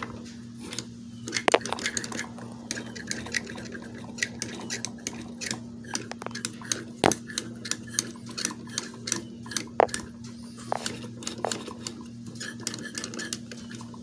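Magnum XL 1.20 four-stroke glow engine, still hot, being turned over slowly by hand, giving irregular squeaks and metallic clicks from inside it over a faint steady hum. The noise began after the engine died at full throttle, and the owner fears it means overheating or valves set too tight.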